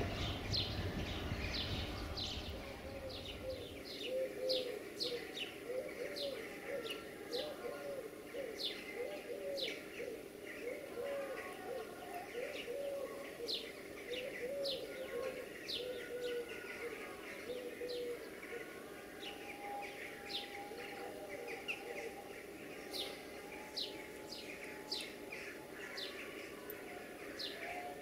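Small birds chirping with short, sharp, repeated notes, and a dove cooing repeatedly in the first half. A low hum stops about four seconds in.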